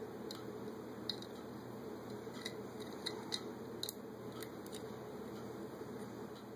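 Scattered light clicks and ticks of small parts on a Holley 600 carburetor fuel bowl being handled by hand while its float level is adjusted, most of them in the first four seconds, over a steady low hum.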